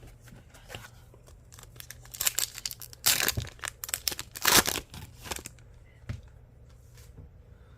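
Foil wrapper of a trading-card pack crinkling and tearing in a run of rustling bursts, loudest in the middle few seconds.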